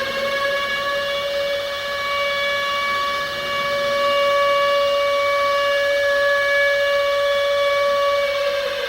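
Civil defence siren sounding a nuclear attack warning: one long wail held at a steady high pitch that starts to fall away near the end.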